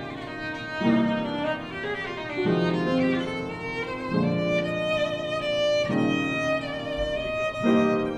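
Violin and upright piano playing an improvised duet: the violin carries a melody over low piano chords that change about every second and a half.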